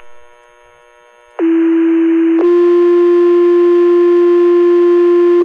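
Two-tone sequential pager alert tones sent over a fire department radio channel to set off the volunteer firefighters' pagers. The first steady tone lasts about a second, then a slightly higher tone holds for about three seconds and cuts off sharply. Faint radio hiss comes before the tones.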